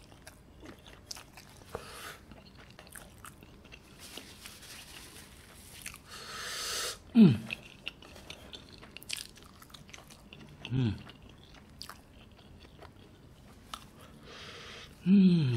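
Close-miked eating of dumplings in spicy Samyang sauce: wet chewing and small mouth clicks. About six seconds in comes a long breath, then a loud falling groan, with another short groan near eleven seconds and a cough into the fist near the end, as the chilli heat gets to him.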